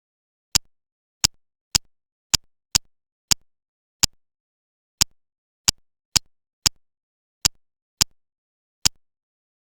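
Plastic building-block pieces clicking together: fourteen sharp, short clicks at uneven intervals, with dead silence between them.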